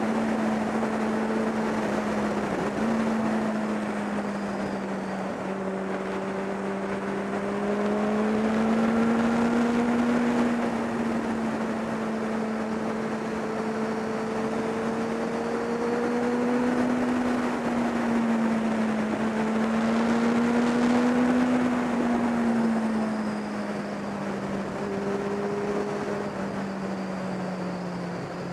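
Kawasaki ZX-10R's inline-four engine running at a steady cruise, its pitch drifting gently up and down with small throttle changes, with wind rushing past the mounted camera.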